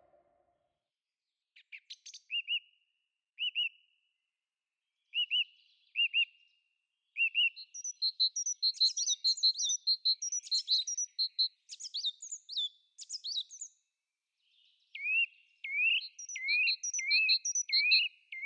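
A songbird singing its evening song in short whistled phrases with pauses between them, several phrases repeated a few times over.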